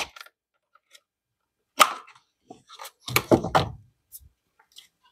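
Scattered metal clicks and knocks of hand tools working bolts in an engine bay, with a short cluster of knocks about three seconds in.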